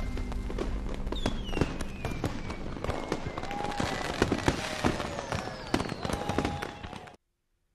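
Fireworks bursting in dense crackling bangs, with several whistles that fall in pitch, cutting off suddenly near the end.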